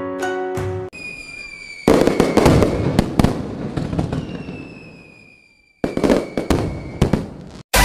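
Fireworks: a whistle, then a loud burst about two seconds in followed by crackling that fades out, with another whistle sounding over it; a second burst with crackling near the end. Plucked-string music plays for the first second.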